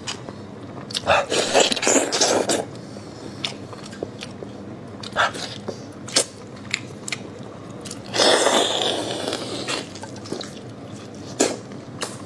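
Close-up eating sounds of sauce-braised monkfish pulled apart by hand: chewing and biting with wet clicks, and two longer noisy stretches, a little after the start and about eight seconds in.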